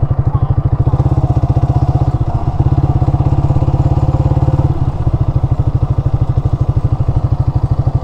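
Yamaha R15's single-cylinder four-stroke engine running at low road speed with an even, rapid pulse, the throttle easing slightly a little before halfway.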